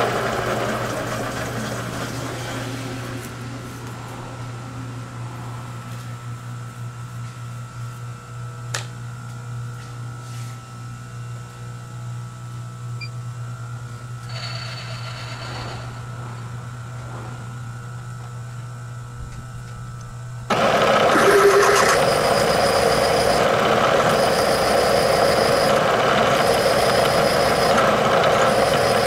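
Bridgeport milling machine drilling a hole in a tractor rear axle bearing hub with a twist drill. The cutting noise fades over the first few seconds, leaving the spindle running free with a steady low hum. About twenty seconds in, a much louder steady machining sound starts abruptly.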